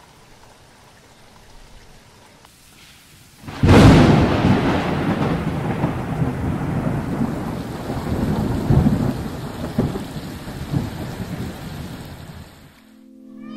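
Thunderstorm: rain falls faintly, then about three and a half seconds in a loud thunderclap breaks and rumbles on over heavy rain, slowly fading until the sound cuts off suddenly near the end.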